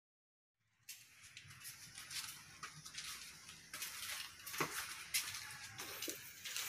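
Digital silence at first, then, from about a second in, faint background noise with scattered light clicks and knocks.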